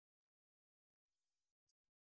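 Near silence: the sound track is all but empty.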